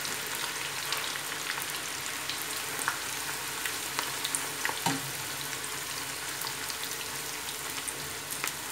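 Sliced onions freshly added to hot oil, frying: a steady sizzle with many small crackles. A spoon stirs through them in the second half, with a light knock a little before five seconds in.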